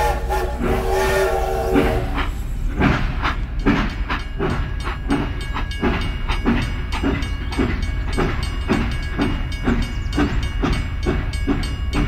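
Toy steam locomotive's built-in sound effects: a whistle for about the first two seconds, then a steady chuffing rhythm of about three beats a second over a low hum.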